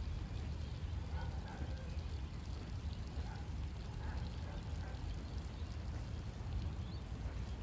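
Steady rain falling, with a constant low rumble underneath and no distinct thunderclap.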